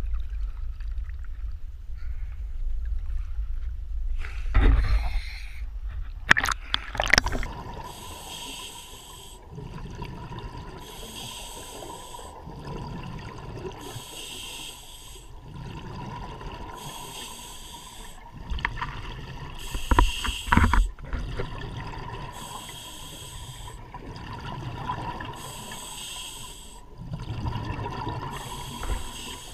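Water sloshing and splashing about five to seven seconds in as the diver goes under, then scuba regulator breathing: hissing bursts of exhaled bubbles about every three seconds.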